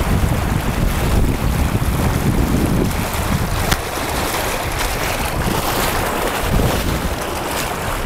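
Fast river rapids rushing, with wind buffeting the microphone. A heavy low rumble eases about three seconds in, leaving a steadier wash of water.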